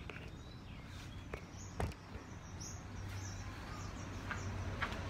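Birds chirping a few times over a low, steady hum, with a couple of light clicks.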